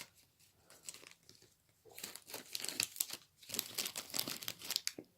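Foil Pokémon booster pack wrapper being torn open and crinkled in the hands: a scattered crackle at first, then a dense run of crinkling for the last three seconds or so.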